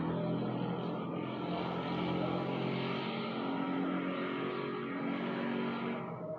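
A motor running with a continuous drone, its tones shifting a little in pitch.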